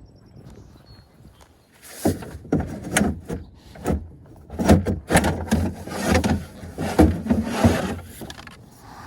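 A run of repeated knocks, bangs and scrapes, hard objects being handled and bumped together. It starts about two seconds in and stops shortly before the end.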